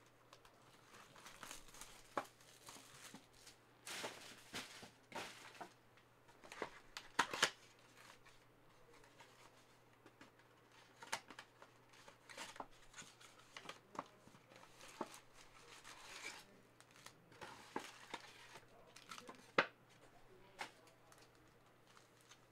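Trading-card packs from a 2020-21 Panini Prizm Premier League mega box being opened by hand. The foil wrappers crinkle and tear in scattered rustles, with light clicks and taps as packs and cards are handled. A faint steady low hum runs underneath.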